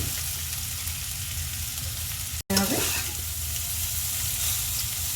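Boiled noodles frying in butter in a hot pan: a steady sizzle that cuts out completely for a moment about two and a half seconds in, then carries on.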